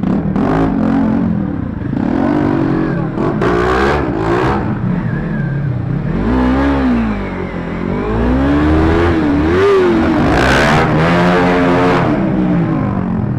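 Single-cylinder Bajaj Pulsar RS200 motorcycle engine running under way, its pitch rising and falling several times as the throttle is opened and closed through the gears.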